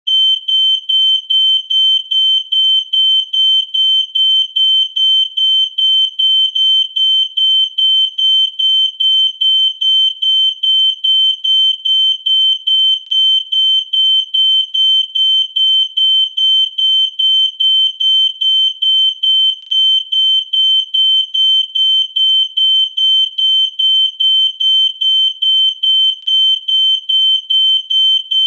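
Smoke alarm sounding: a high-pitched single-tone beep repeating rapidly and evenly, about two beeps a second, without a break.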